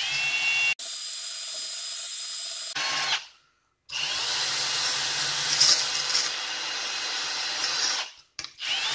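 Milwaukee Fuel brushless cordless drill spinning a small wire brush against a steel canning-jar lid, scrubbing the plating off down to bare metal. It runs in three stretches, stopping for about a second about three seconds in and briefly again near the end.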